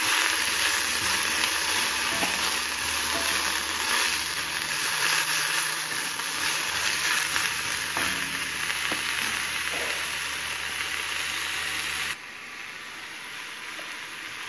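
Ridge gourd peels sizzling as they fry in an iron kadai and are stirred, being sautéed until they shrivel and curl. The frying noise is steady, then drops abruptly in level about twelve seconds in.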